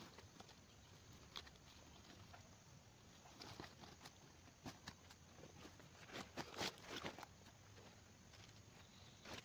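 Faint crackling and rustling of dry fallen leaves and twigs as a person works crouched over them, with a short run of louder crackles about six to seven seconds in. Near the end comes a crunch as he steps on the leaves.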